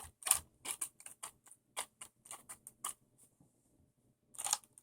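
Light plastic clicks and ticks from handling the RC buggy's parts, about four a second, stopping about three seconds in, then a short rattle of clicks near the end.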